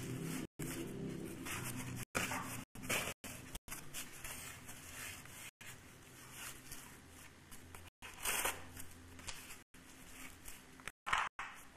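Irregular tearing and scraping noises, one every second or so, over a faint low hum in the first couple of seconds.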